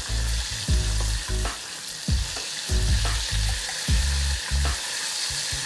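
Coated tofu pieces deep-frying in a pan of hot oil: a steady sizzle with scattered crackles, broken by intermittent low thumps.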